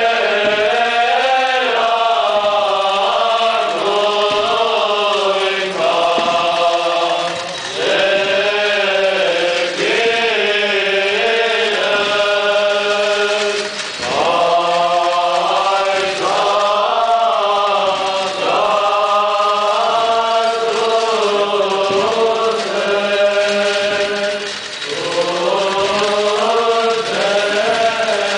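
Armenian liturgical chant sung by a group of voices, a flowing melody in phrases with brief breaks, over a steady low held note.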